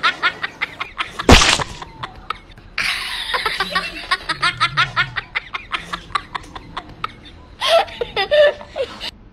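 Laughter sound effects: repeated bouts of rapid giggling laughter, cut in and out sharply, with one loud, sharp burst of noise about a second in.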